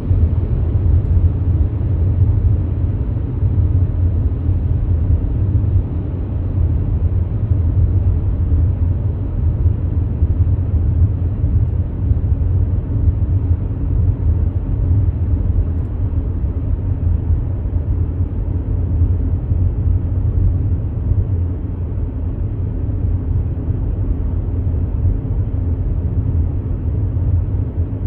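Steady low road and engine rumble of a car driving on a highway, heard from inside the cabin.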